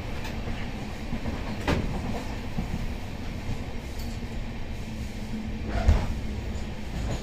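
Indian Railways express train running, heard from inside a passenger coach: a steady rumble of wheels on rails with a steady hum, and two knocks, the louder one about six seconds in.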